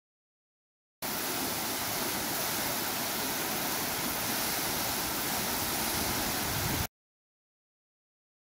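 Tall waterfall plunging down a rock cliff into a pool: a steady rush of falling water that starts abruptly about a second in and cuts off suddenly near the end.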